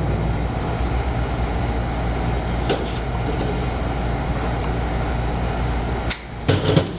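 A steady low hum, with a few light clicks and knocks from hoses and fittings being handled in the engine bay. The hum drops out briefly near the end, and two sharper knocks follow.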